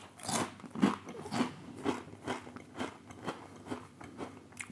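A person chewing a crunchy crisp baked with a layer of toasted cheese, this one a little over-done, with close crunching chews about two a second that slowly grow softer.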